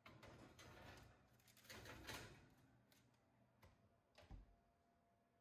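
A metal baking sheet scraping as it slides onto a wire oven rack, a few light clicks, then the oven door closing with a low thump about four seconds in.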